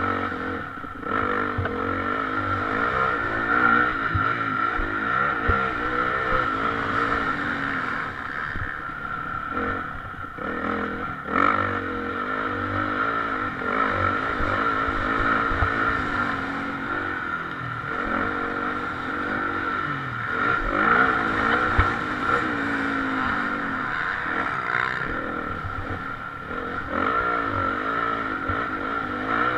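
Motocross bike's engine revving up and down without a break as it is ridden hard around a dirt track, heard close up from on board, the pitch rising and falling with the throttle and gear changes.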